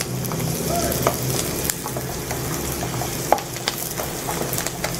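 Chopped onions and green chillies frying in oil in a wok, with a steady sizzle, while a spatula stirs them and clicks against the pan a few times. The chillies are being sautéed until soft.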